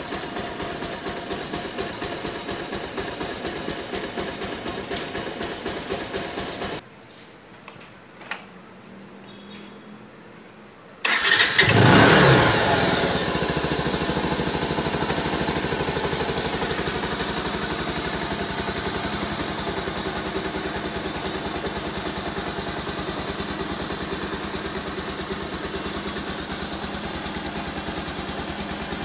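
Small motorcycle engine idling, then cut off about seven seconds in. After a few quiet seconds and a click, it starts again with a brief rev that falls away into a steady idle, running on a newly fitted stator.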